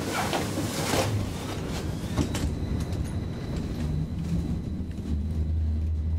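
A32 tram running, heard from inside the passenger cabin: a steady low rumble with a few knocks in the first couple of seconds and a faint high whine, and a low hum that grows stronger near the end.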